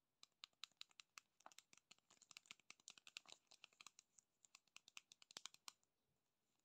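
Long fingernails tapping and scratching on the side of a plastic candy jar: a quick, irregular run of light, crisp clicks that stops about a second before the end.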